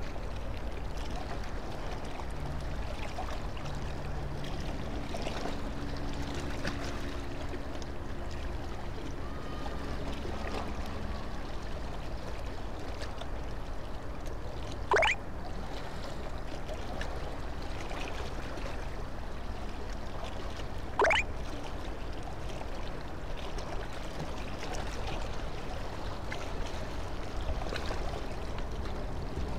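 Steady wash of harbour water lapping at the quay, with a faint low hum in the first third. Two short, sharp rising chirps about 15 and 21 seconds in stand out above it.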